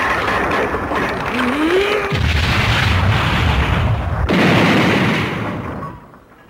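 Heavy mechanical rumbling as a large roped fighting ring turns into place. It grows deeper about two seconds in, swells again about four seconds in and dies away near the end.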